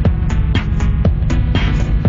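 Electronic music with a heavy, steady bass and a regular drum beat; no singing.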